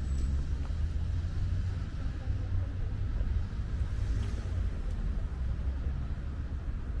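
City street ambience: a steady low rumble of traffic noise.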